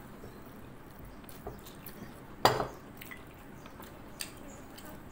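Tableware sounds during a meal: a few faint ticks, then one sharp, loud clink of dishware about halfway through that rings briefly.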